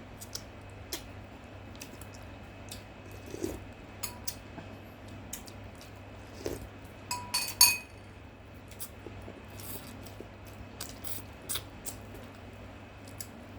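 Close-up eating sounds: scattered wet mouth clicks and smacks, with a utensil clinking against a dish a little past the middle, the loudest sound. A steady low hum underneath.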